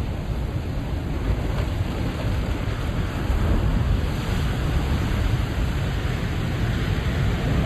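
Ocean surf washing in at high tide, a steady rushing wash that swells a little louder about three seconds in, with low wind rumble on the microphone.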